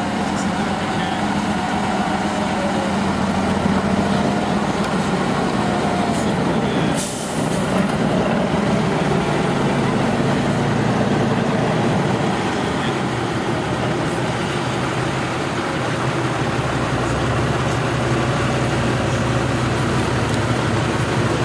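Eight-wheeled trial truck's diesel engine working hard under load, its speed wavering with the throttle. There is a brief hiss about seven seconds in.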